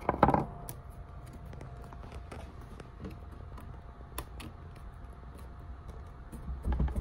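Quiet hand-handling sounds: faint scattered clicks and rubs of fingers working a Velcro-backed foam concave pad on a Onewheel's grip-tape footpad, over a faint steady hum. There is a short louder noise just after the start and low bumps near the end.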